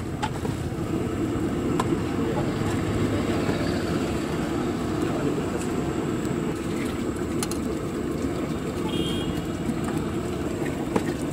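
Steady low rumble of background noise, with a few light metallic clinks of a steel spatula and ladle against a large steel pan as the mixture is stirred.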